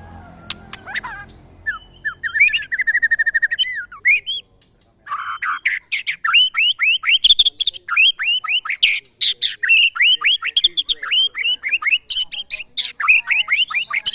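White-rumped shama (murai batu) singing: a fast trill of repeated notes, a short break about four seconds in, then a long run of rapid whistled sweeps, several a second.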